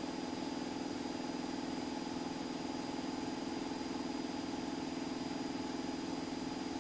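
Cessna 172 Skyhawk's piston engine and propeller running steadily in flight: an even drone with no change in pitch, and a faint steady high whine above it.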